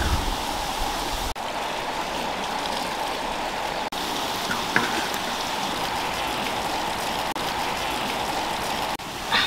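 Water at a rolling boil in a large metal wok, giving a steady bubbling hiss that drops out for a moment several times.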